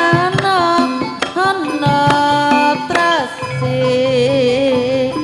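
Javanese campursari ensemble playing: a hand-drum (kendang) pattern of sharp strokes under a sustained, bending melody line.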